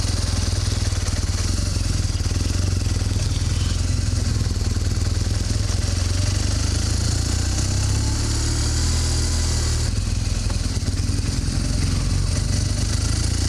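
BMW GS motorcycle engine running steadily as the bike pulls away and rides off at low speed, with a steady hiss over it.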